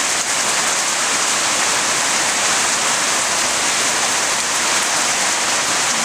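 Steady rain falling, an even unbroken hiss.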